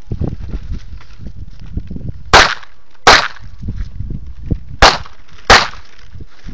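Handgun shots fired outdoors: four sharp shots in two quick pairs, each pair about 0.7 s apart, with a pause of under two seconds between the pairs.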